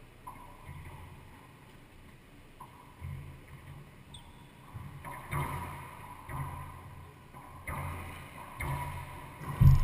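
Racquetball rally in an enclosed court: a couple of light ball bounces, then from about five seconds in, sharp hits of the ball off racquets and walls about once a second, with thuds and echo under them. The loudest hit comes near the end.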